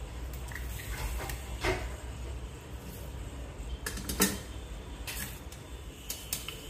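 Mustard seeds added to oil with dried red chillies in a kadai for tempering: a few scattered sharp ticks over a low steady hum.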